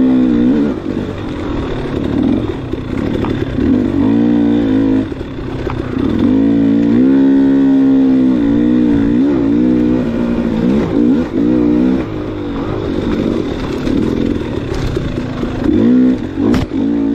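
Dirt bike engine revving up and down under throttle while being ridden on an enduro course, its pitch climbing and dropping every few seconds as the rider accelerates, backs off and shifts.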